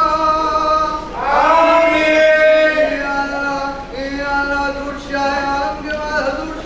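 A man chanting a prayer as long, drawn-out melodic recitation with held notes. About a second in, his voice slides up into a loud held note, the loudest part.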